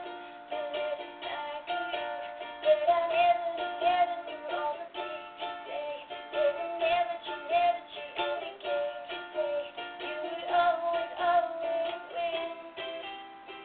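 A voice singing a slow melody over a strummed acoustic guitar, in a small room; the recording sounds thin, with little bass or treble.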